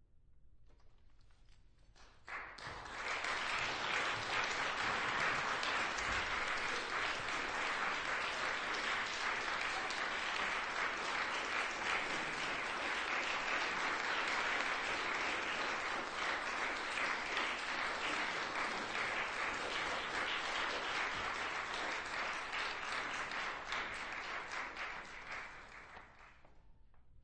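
Audience applauding, starting suddenly about two seconds in and dying away shortly before the end.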